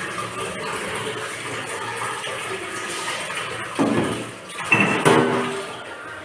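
Water running steadily from a tap, as during dishwashing, with two louder bursts of sound about four and five seconds in.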